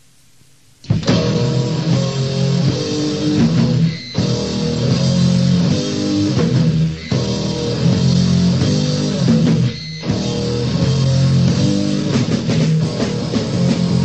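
Quiet tape hiss, then about a second in a band crashes in with loud distorted electric guitars, bass and drums: fast, heavy crust/grind-style punk rock, with brief stops near 4, 7 and 10 seconds.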